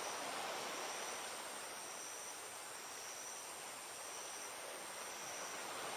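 Steady outdoor background noise, an even rushing hiss, with two faint, steady high-pitched tones running over it.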